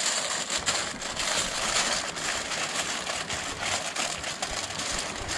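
Aluminium foil crinkling and rustling steadily as hands press and shape it into a tray.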